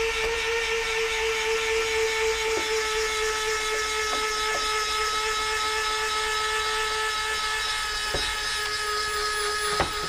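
Electric retract on a Hangar 9 F4U-1D Corsair model's tail wheel, whining steadily as it slowly draws the wheel and its doors up, with a few light clicks. Right at the end the whine begins to drop in pitch as the gear reaches full retraction.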